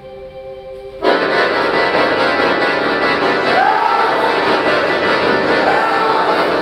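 Accordion playing a quiet held chord, then about a second in jumping suddenly to a loud, dense cluster of many notes that carries on.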